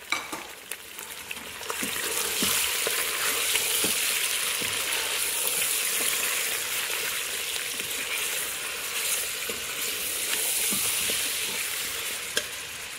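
Beef chunks sizzling in hot oil in an Instant Pot's stainless steel inner pot on sauté mode, the sizzle swelling about two seconds in and then holding steady. A metal spoon stirring the meat scrapes and taps lightly against the pot now and then.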